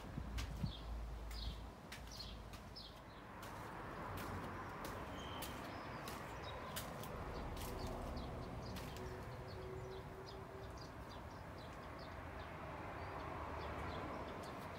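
Outdoor ambience: small birds chirping again and again, with scattered sharp clicks over a faint steady background.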